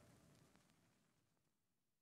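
Near silence: the background music has faded out and only the faintest trace of it remains.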